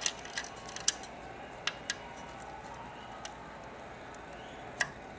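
Light clicks and taps of small elevator push-button parts and a miniature bulb being handled and fitted by hand, a few in the first two seconds and one more near the end, over a low hiss.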